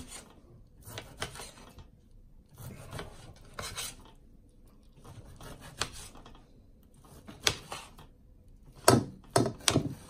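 Knife sawing through a cooked pork chop on a ceramic plate, in short bursts of back-and-forth strokes with pauses between, the blade scraping against the plate. A few sharp clicks of the blade on the plate about nine seconds in are the loudest sounds.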